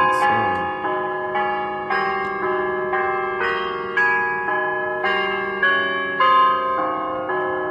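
Bells struck one after another, about two strikes a second, each note still sounding as the next one starts.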